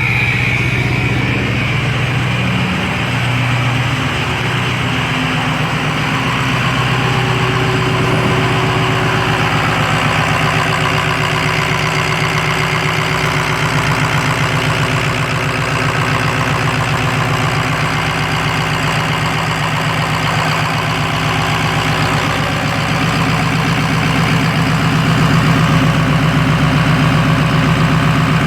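Ford 6.0 Power Stroke V8 turbo-diesel running steadily, mostly at idle, with the high whine of its Garrett PowerMax turbocharger over the engine note. A high whine dies away in the first second or so.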